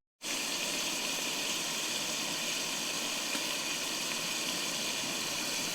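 Scallops and garlic sizzling steadily in a hot cast iron pan, an even hiss with no breaks.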